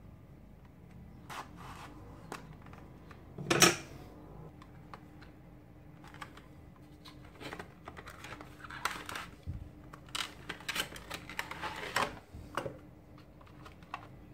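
Cardboard and plastic packaging being handled: a metal blade scraping along the edge of a cardboard box, with one loud sudden scrape about three and a half seconds in. Later, cardboard flaps and a clear plastic clamshell tray rustle and click in quick succession.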